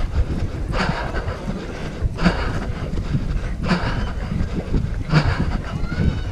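Wind rumbling and buffeting on a GoPro's microphone as its wearer runs, with a hiss that comes back about every second and a half.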